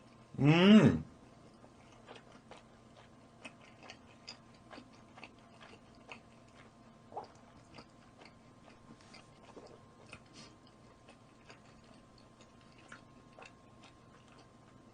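A man's loud, falling "mm" hum about half a second in, then faint, irregular chewing and mouth clicks as he eats roast chicken.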